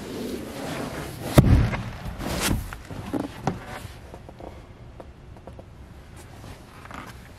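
Thumps and knocks from handling the hinged storage lids and cushions of a fiberglass boat's stern couch. There is one loud thud about a second and a half in, a second thud about a second later and a smaller knock after that, with shuffling between them.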